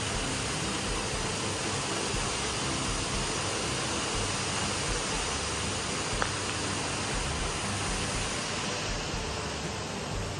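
Steady, even rushing noise with no rhythm or pitch, and a single faint click about six seconds in.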